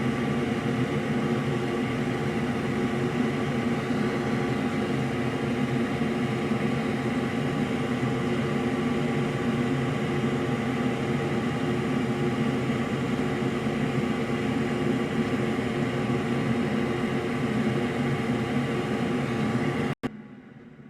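Steady hum of a small electric blower motor, unchanging in pitch and level, cut off abruptly near the end.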